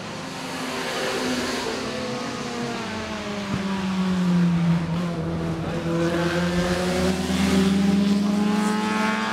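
Several vintage production sports cars with engines under two litres race past in close succession at high revs. Their engine notes dip and then rise in pitch as they pass and accelerate, loudest about four and a half seconds in and again near the end.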